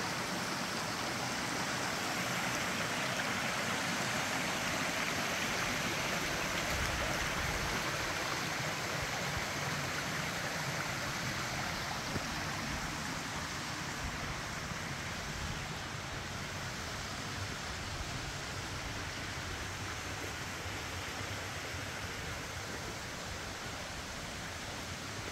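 Steady rush of creek water tumbling over rocks, easing off a little past the middle.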